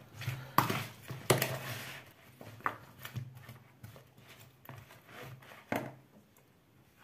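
Metal spoon stirring oiled, seasoned potato slices in a plastic bowl: irregular scrapes and clicks of the spoon against the bowl and the slices, thinning out near the end.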